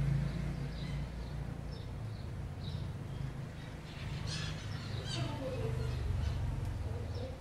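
A bird chirping repeatedly, about two short high chirps a second, over a steady low rumble. A few clicks come about four seconds in, and a brief falling tone just after.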